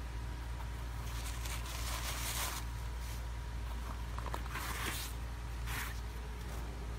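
Knit fabric and laces of a sneaker rustling and scraping as hands work them, in a longer spell of scraping about a second in and two short ones near the end, over a steady low hum.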